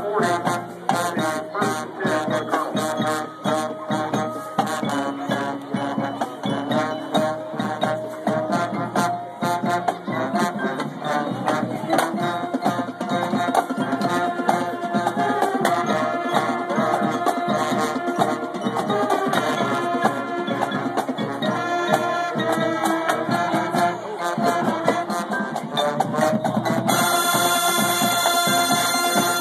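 High school marching band playing in the stands: brass with a steady drum beat. Near the end it moves into a fuller, sustained loud passage.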